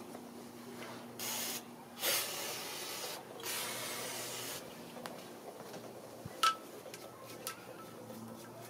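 Aerosol spray can hissing in three bursts at a car's front brake rotor and hub: the first burst is short and the next two run about a second each. A few light clicks follow, with one sharper tick.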